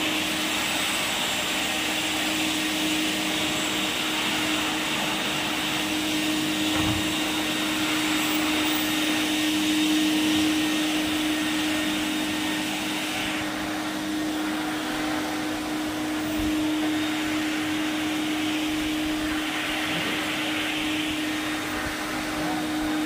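Drum-type wet-and-dry vacuum cleaner running steadily, its hose and floor nozzle drawn over carpet tiles: a constant motor hum with suction hiss that eases slightly about halfway through.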